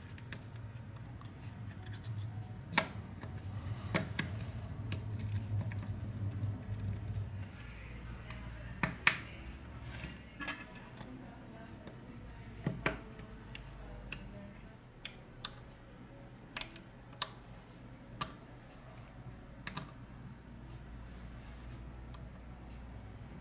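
Small sharp clicks and taps, about a dozen spread irregularly, from a smartphone's mainboard being set into its frame and its flex-cable connectors being pressed home onto their board sockets, over a low steady hum.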